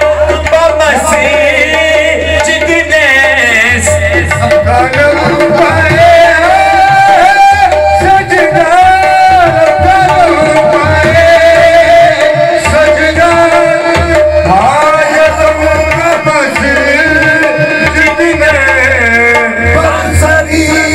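Qawwali music: a singer's long, wavering held notes over tabla drumming, loud and continuous.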